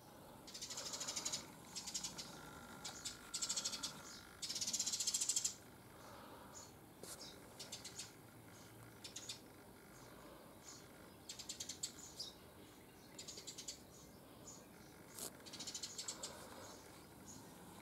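High-pitched chirping trills from small wild animals, coming in short repeated bursts with pauses between. The longest and loudest burst comes about five seconds in.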